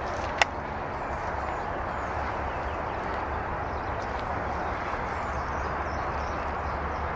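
Steady rustling noise outdoors, with a single sharp snap about half a second in.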